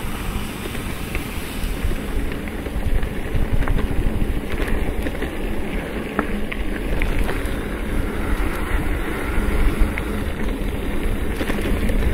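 A loaded bikepacking bike rolling over a rough dirt track, picked up by a handlebar-mounted camera: a steady low rumble of tyres and frame vibration with scattered small clicks and rattles, and wind on the microphone.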